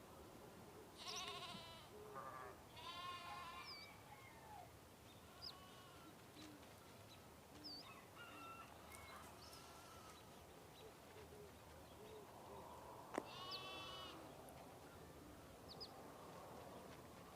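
Sheep bleating, each bleat a wavering call: louder ones about a second in, around three seconds and near thirteen seconds, with fainter bleats between. Short high bird chirps come now and then.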